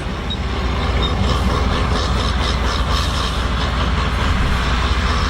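Heavy machinery running steadily: an even, unbroken machine noise over a strong low rumble.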